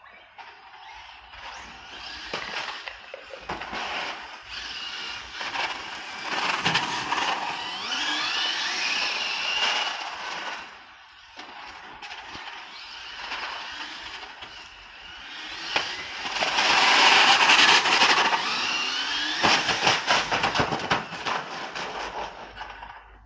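Hobao GTB brushless RC car running hard on asphalt. The motor's high whine rises and falls with the throttle over gritty tyre noise, in two long passes, the louder one starting about 16 seconds in.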